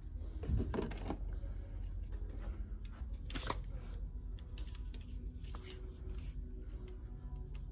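Shop room tone: a steady low hum with a faint, short high chirp repeating every second or so, and brief handling rustles and knocks, the strongest about half a second in and again about three and a half seconds in.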